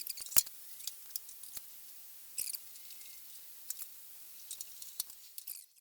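Scattered sharp clicks and light taps of a metal alloy fuel pipe being handled and fixed into place on a car's underside, with a small cluster of clicks about two and a half seconds in.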